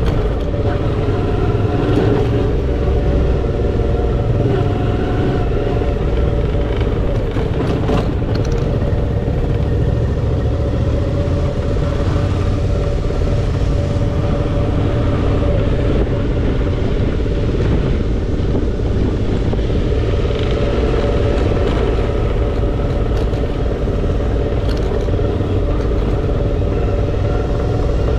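Suzuki V-Strom 650 XT's 645 cc V-twin engine running steadily at low trail speed, heard from on the bike over a strong low rumble. A single sharp knock about eight seconds in.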